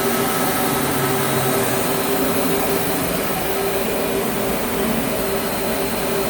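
Burner of an 800-horsepower Superior steam boiler firing: the combustion-air blower and flame make a steady rushing noise with a constant hum.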